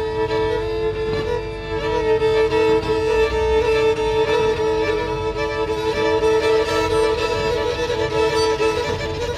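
Violins playing long, slow held notes together, a sustained chord that keeps its pitch with only a slight waver.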